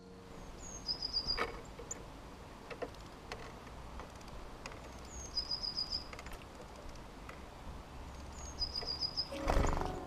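A small songbird singing the same short phrase three times, each a single high note followed by a quick run of five or six notes, against garden background sound. A few light ticks, and a louder dull knock near the end.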